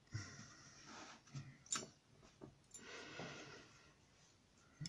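Faint breathing close to the microphone, with a few small sharp clicks from handling the lock's pins and tools; the loudest click comes about two seconds in.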